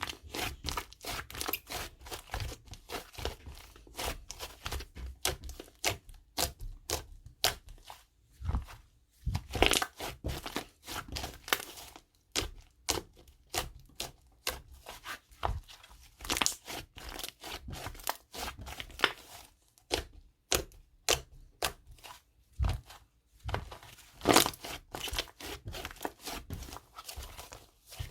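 Green clay slime being kneaded and mixed by hand, crackling and popping in quick irregular clicks with wet squishes; a few louder pops stand out around ten seconds in and near the end.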